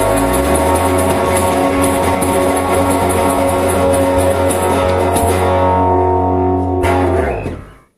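Closing bars of a punk rock song on guitar, bass guitar and cajon: the rhythmic strumming stops about five seconds in, and the last chord and bass note ring on and die away near the end.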